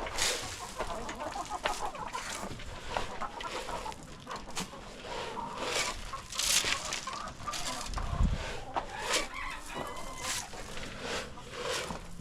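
Chickens clucking, with a rooster crowing from inside the coop, among scattered knocks and rustling. There is a low thump about eight seconds in.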